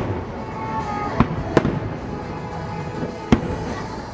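Fireworks shells bursting: three sharp bangs, two close together about a second in and one more near the three-second mark.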